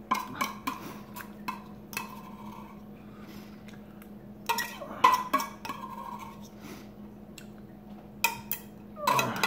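Metal fork clinking and scraping against the inside of a tuna can in short runs of clicks, near the start, about halfway and near the end, as the last of the tuna is scooped out.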